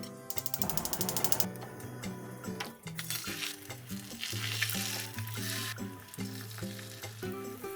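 Beaten egg for a pollock-roe rolled omelette sizzling in a hot oiled pan, loudest in the middle stretch, over background music. About half a second in there is a brief fast run of clicking.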